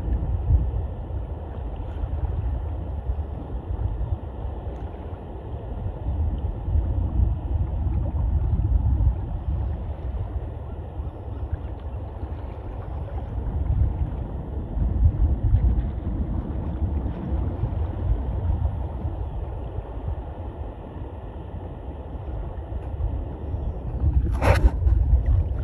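Wind buffeting a phone's microphone over open water, a low rumbling noise that gusts louder and softer every few seconds. Near the end there are two brief sharp noises.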